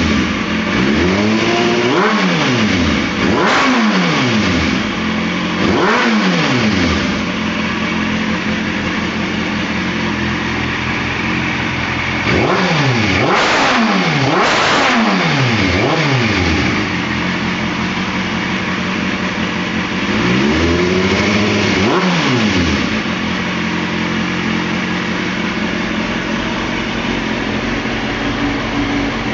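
2003 Kawasaki ZX-6R's inline-four engine breathing through a Shark Conic aftermarket exhaust, idling and revved in quick throttle blips that rise and fall. There are three groups of blips, near the start, around the middle and about two-thirds through, with a steady idle between.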